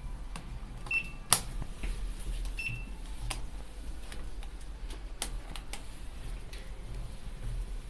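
Hitachi elevator car-panel push buttons pressed by hand, a scatter of sharp clicks over a steady low hum, with two short high beeps about a second apart near the start.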